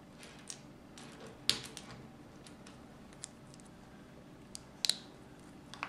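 Small sharp clicks and taps of Lego plastic pieces being handled and pressed together by fingers, a scattered handful with the loudest about a second and a half in and a quick double click near the end.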